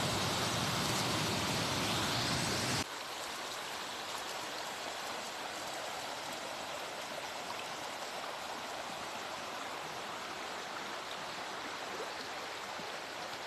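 Running water of a river cascade, a steady rushing hiss. For about the first three seconds a louder, deeper rushing noise plays, and it cuts off abruptly.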